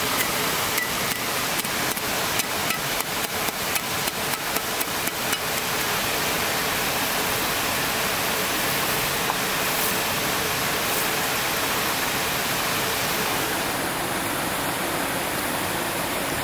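A cleaver chopping garlic in a plastic bag on a flat rock: a fast run of sharp knocks, about five a second, that stops about five seconds in. Under it the steady rush of flowing water.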